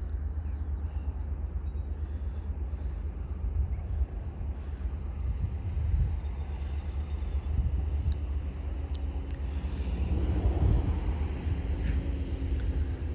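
Wind buffeting the microphone in a steady low rumble beside the railway line, with a few bird chirps around the middle. From about ten seconds in, a distant hum and hiss builds, faint steady tones included: the cement train approaching.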